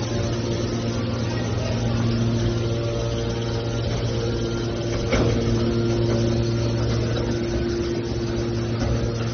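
Hydraulic scrap aluminum baler's power unit running with a steady hum, with a single sharp knock about five seconds in.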